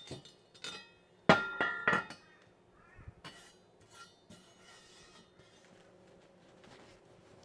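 Steel angle-iron frame clanking on a steel workbench as it is set down and shifted: one clank just after the start, then the loudest, a ringing metallic strike about a second in followed by two quick clanks. After that, only faint handling clicks and rustling as leather welding gloves go on.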